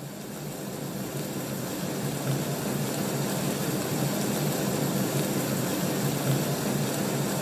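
A rain sound recording played through an Amazon Echo Dot smart speaker: a steady rain hiss that swells over the first couple of seconds and then holds steady.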